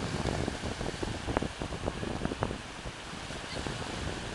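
Small sea waves breaking and washing in the shallows, with wind buffeting the microphone; a few short, sharp splashes stand out.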